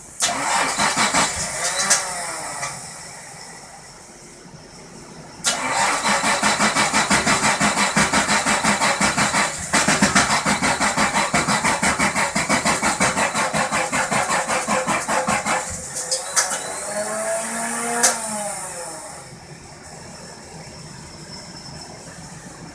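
Starter motor cranking a 1977 Datsun 280Z's straight-six in repeated attempts: a short burst at the start, then a long, evenly pulsing crank of about ten seconds with a brief break in the middle, without the engine catching. The car won't start.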